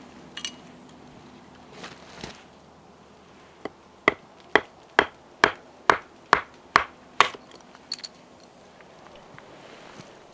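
Batoning firewood: a wooden baton knocks a blade down through a short length of wood about eight times, roughly two sharp knocks a second, splitting it.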